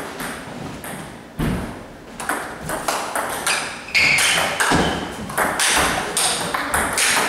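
Table tennis rally: the plastic ball clicking off rubber paddles and bouncing on the table in a quick, uneven series of sharp ticks.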